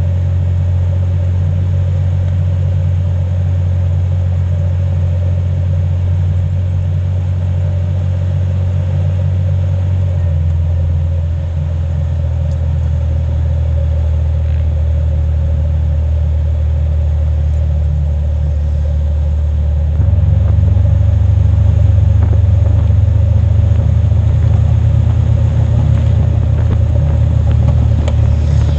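Jeep driving through soft sand, heard from a camera mounted low on the body beside a tyre: a steady low engine and drivetrain drone. Its note drops about ten seconds in, and it gets louder about twenty seconds in.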